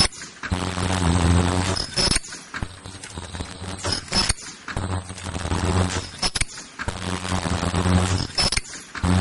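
Mask-making machine running through its cycle: a humming drone about a second long comes and goes every few seconds, with sharp metallic clicks in between.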